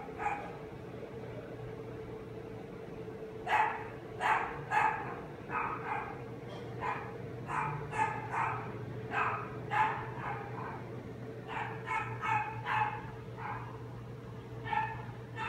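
A dog barking in quick runs of short barks, starting about three and a half seconds in, over a steady low hum.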